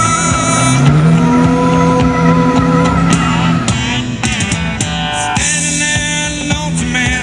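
Music: a song with singing and guitar, held notes and a steady beat.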